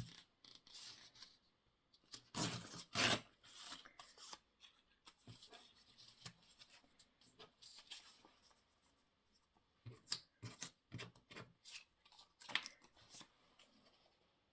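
Paper and card pieces being handled and rustled on a craft table, in irregular crisp strokes, with busier spells about two to three seconds in and again around ten to thirteen seconds in.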